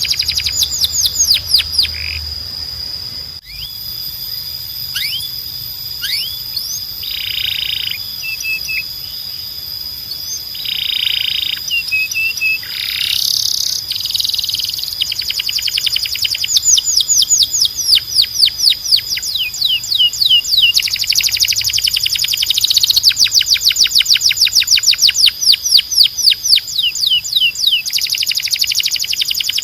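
Timbrado canary singing: long rolling trills of rapid, repeated down-sweeping notes alternating with shorter buzzy phrases, with a steady high whistle-like tone held beneath throughout.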